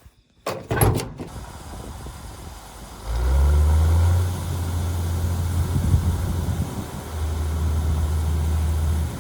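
A large vehicle engine running with a steady low hum that comes in about three seconds in, after a short burst of clatter or hiss near the first second.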